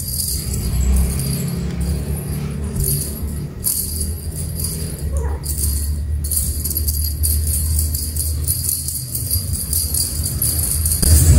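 Background music with a jingling, bell-like high part over a steady low accompaniment.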